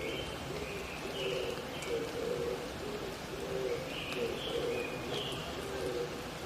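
Oriental turtle dove (mountain pigeon) cooing in a repeating series of low notes, while a small bird calls in short higher phrases a few times over it.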